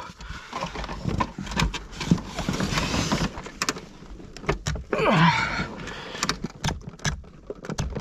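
Cable being hauled by hand through buried conduit in a tough pull: irregular scraping, knocking and handling noise, with a strained vocal sound of effort about five seconds in.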